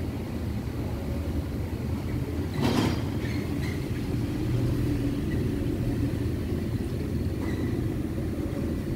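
Mitsubishi Electric Mr. Slim inverter air conditioner outdoor unit running under load: a steady low hum from the compressor and condenser fan, with a short burst of noise near the third second.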